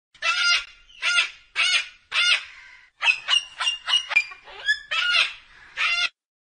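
A white cockatoo calling: four loud squawks about half a second apart, then a quicker run of shorter squawks over the next three seconds.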